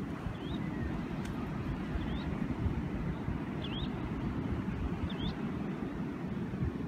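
Wind rumbling on the microphone, with about four short high bird chirps spaced through it.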